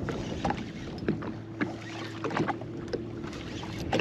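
Small waves slapping against the hull of a jet ski drifting at sea, with scattered light knocks and clicks. A low steady hum comes in about a second in and stops a little after three seconds.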